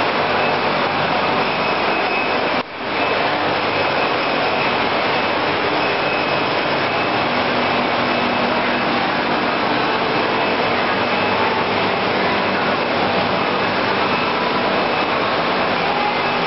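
Wohlenberg City 4000 perfect binder running: a loud, steady mechanical noise with faint steady tones in it. The sound briefly cuts out for a moment under three seconds in.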